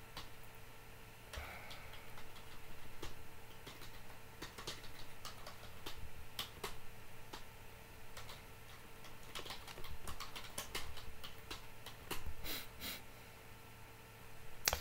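Irregular, sparse clicks of a computer keyboard and mouse, over a faint steady electrical hum.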